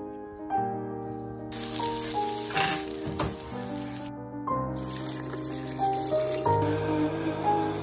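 Background instrumental music throughout. A hiss of onions and shallots frying in the pan comes in about a second and a half in and stops just after four seconds. Then broth splashes as it is poured into a blender.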